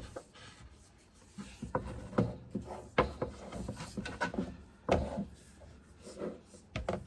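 Handling noise as a heavy-duty power cord is stretched out straight: irregular rubbing and scraping with a few sharp knocks, the loudest about three and five seconds in.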